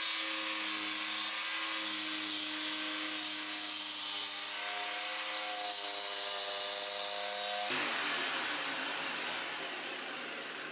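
Bosch jigsaw with a clean-cut blade sawing a curve through a pine board, its motor running at a steady pitch. About three-quarters through, the sound turns abruptly rougher and then fades away near the end.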